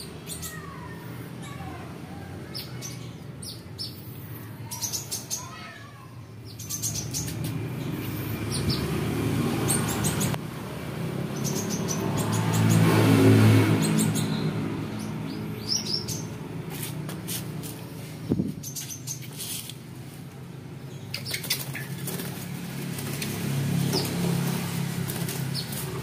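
A caged white-rumped shama flapping its wings and giving short chirps. Under it, a passing vehicle's low hum swells and fades about halfway through.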